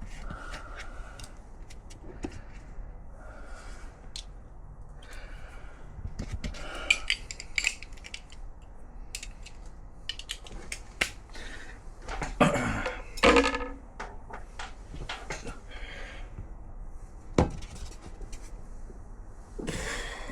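Hand tools on metal: sockets and wrenches clinking and clanking in irregular, scattered strikes, with a louder cluster of clanks a little past the middle, while stubborn bolts are worked loose on a motorcycle engine.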